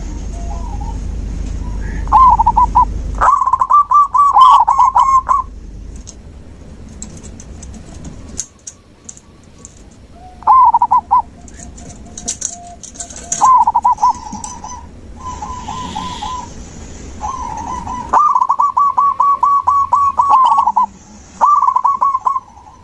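Zebra dove (perkutut) cooing in repeated bouts of fast, rapidly repeated notes, the longest lasting about three seconds. Fainter, higher chirps come in between the bouts.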